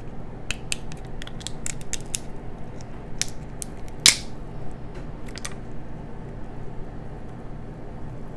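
Crab shell cracking and snapping as meat is picked out of it by hand: irregular sharp clicks, with one louder snap about four seconds in.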